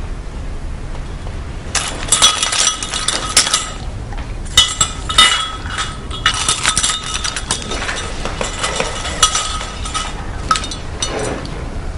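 Keys jangling and clinking against each other and against a glass bowl as a hand rummages through them, in irregular clusters of sharp clinks with a short metallic ring.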